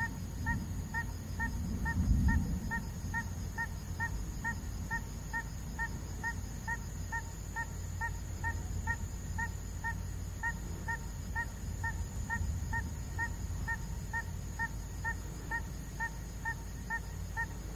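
A short animal call note repeated evenly about twice a second, over a steady high-pitched insect-like drone. A low rumble swells about two seconds in.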